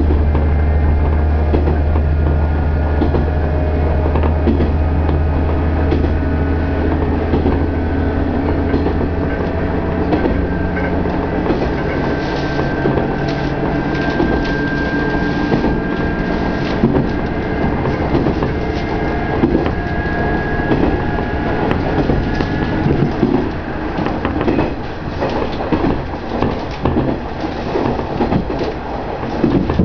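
KiHa 110 series diesel railcar running, heard from behind the cab: the diesel engine's low drone is strong for the first ten seconds or so, then drops away as the power comes off. The wheels click over the rail joints throughout, with a thin high squeal in the middle as the train takes a curve.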